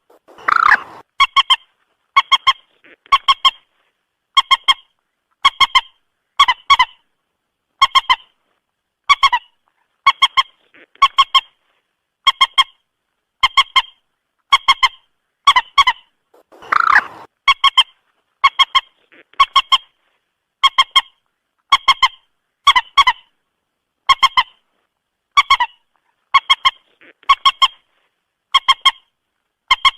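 Moorhen calling repeatedly: short, clipped, honking notes, mostly in quick doubles about once a second. Two longer, rougher calls come about a second in and again around the middle.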